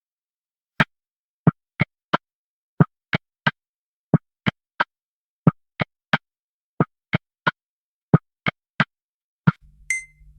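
A rubber postmark stamp thudding down on paper again and again, mostly in quick runs of three strikes about a third of a second apart. A short ringing tone sounds near the end.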